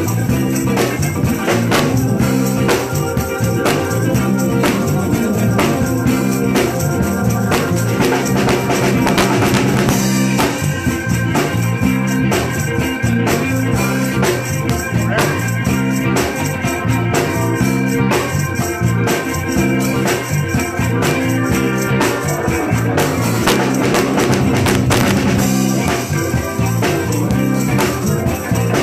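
Live band music with a steady drum beat.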